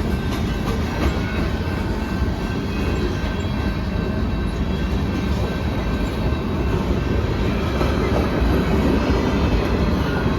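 CN freight train rolling past, its railcars making a steady rumble over the rails.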